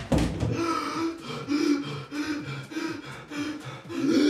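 A thud at the very start, then a man sobbing and whimpering in short, rhythmic, choked breaths while being held by the throat.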